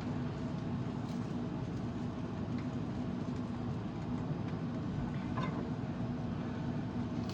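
Buttered bread sizzling steadily in a frying pan, over a low steady hum.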